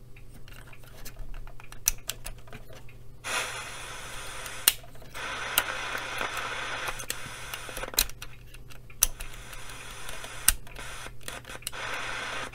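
Band selector slide switch of a Panasonic RF-2400 portable radio being worked back and forth after a spray of contact cleaner, giving sharp clicks. Between the clicks, stretches of radio static hiss from the speaker start and stop abruptly as the switch makes and breaks contact.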